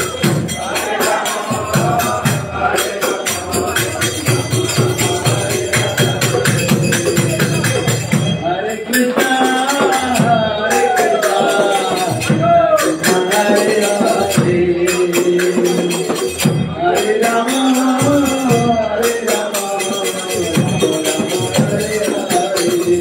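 Devotional kirtan: voices singing a chant over fast, steady jingling percussion, the singing clearest from about nine seconds in.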